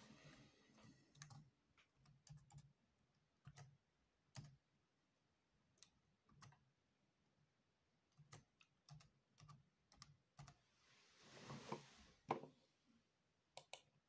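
Faint keystrokes on a Dell Latitude E5410 laptop keyboard as a password is typed: single key clicks and short runs of clicks with pauses between them. A louder click comes about twelve seconds in, then two quick clicks near the end.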